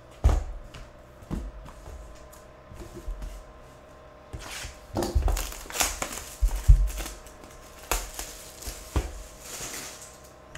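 Cardboard trading-card hobby boxes handled and opened on a table: a sharp knock just after the start, then scattered knocks and clicks with bursts of cardboard scraping and rustling in the middle and near the end.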